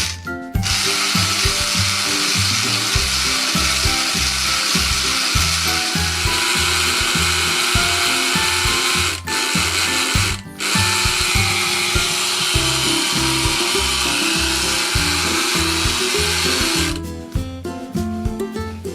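A small battery toy motor whirring steadily, stopping twice briefly around the middle and then cutting off near the end, over background music with a steady beat.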